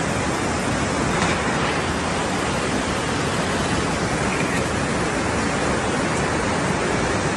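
A steady, even rushing of water, with no speech over it.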